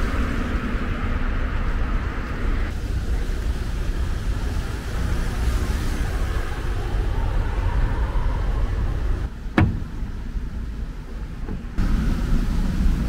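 Outdoor traffic ambience: a steady rumble of road vehicles, changing abruptly a few times, with a single sharp click near the middle.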